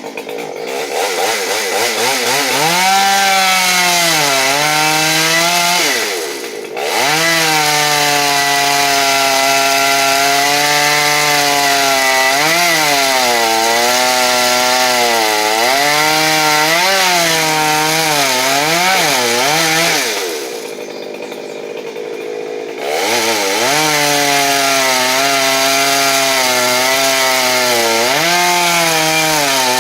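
Chainsaw at full throttle cutting bois d'arc (Osage orange) hardwood, its engine pitch dipping and recovering as the chain bites into the wood. It drops back to idle briefly about six seconds in and again for about two seconds past the twenty-second mark, then revs back up and keeps cutting.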